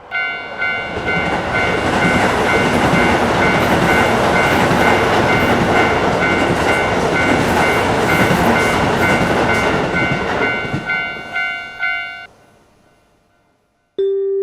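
Level-crossing warning bell ringing its repeated 'kan-kan' at about two strikes a second while a train rushes past. The train noise thins out about eleven seconds in, leaving the bell, which cuts off suddenly about a second later; a few notes of mallet-percussion music start near the end.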